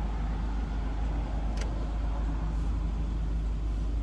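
Steady low rumble inside a car's cabin, with one short click about a second and a half in.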